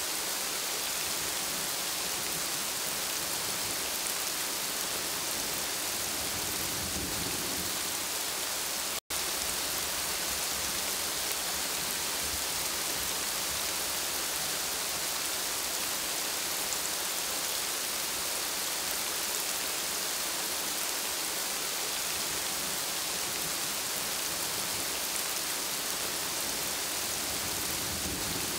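Steady rain falling on broad plant leaves, an even hiss of many drops. The sound cuts out for an instant about nine seconds in.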